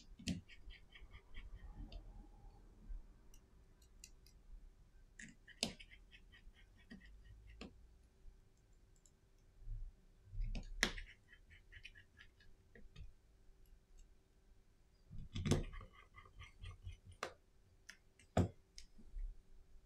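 Small hand tools and phone parts clicking and tapping against a Samsung Galaxy S10's frame during reassembly. There are sharp clicks every few seconds, some with a brief light rattle after them.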